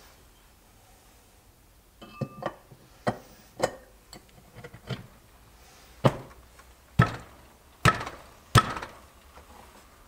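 Aluminium side cover being fitted onto a Puch ZA50 moped engine case: a run of sharp knocks and taps as it is seated, the four loudest coming in the second half.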